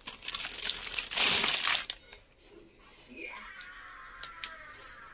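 Plastic packaging crinkling and rustling as a clothing parcel is unwrapped, loud for about the first two seconds, then fading to faint rustles and light handling clicks.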